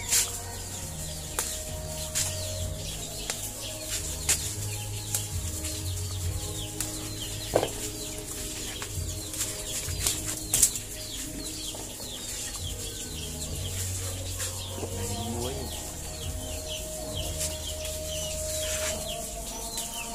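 Leaves and twigs of a green oleaster tree rustling, with scattered sharp snaps as fruit is pulled from the branches. Chickens cluck and cheep in the background.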